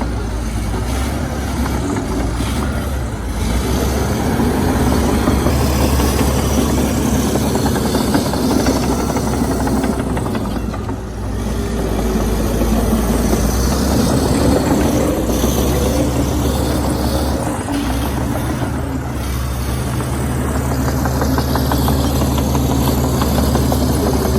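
Komatsu D61EX crawler bulldozer's diesel engine running steadily under working load, its note easing briefly about halfway through before it picks up again.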